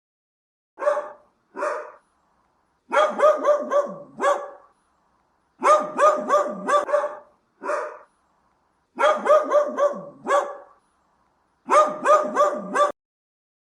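Dog barking: a couple of single barks, then repeated quick runs of four or five barks separated by short pauses.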